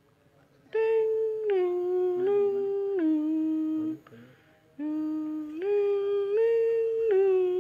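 A voice humming a slow wordless tune in two phrases of held notes that step up and down in pitch, with a short break near the middle.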